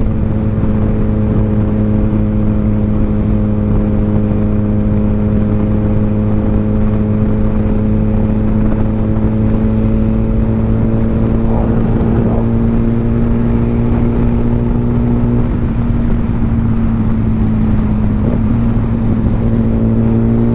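Kawasaki ZX-10R's inline-four engine running at a steady cruise, with wind and road noise heard from the rider's position. The engine note holds nearly level, sags slightly and picks up again near the end, and there is one brief click about halfway through.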